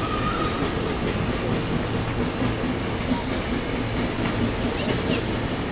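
Steam-hauled train of coaches rolling away over the rails behind a Hunslet Austerity 0-6-0ST saddle tank locomotive, a steady rumble with a few faint clicks of wheels over the track.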